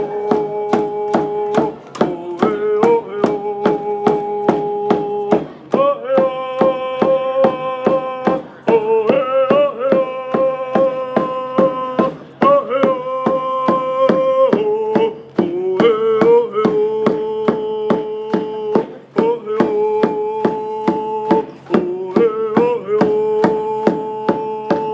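Hand-held frame drums beaten in a steady beat, about two strikes a second, under singing in long held notes that step from pitch to pitch in phrases of a few seconds.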